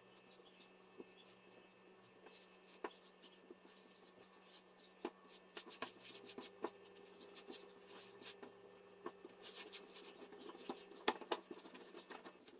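Hands kneading a flour-and-water dough on a floured countertop: faint, irregular rubbing, pressing and soft pats of the dough against the surface, busier in the second half.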